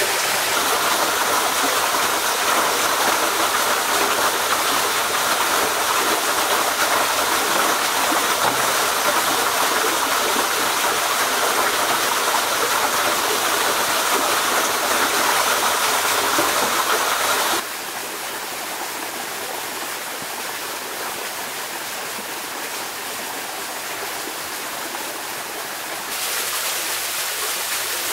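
Steady rush of flowing water from a stream. It drops suddenly in level about two-thirds of the way through and comes partly back up near the end.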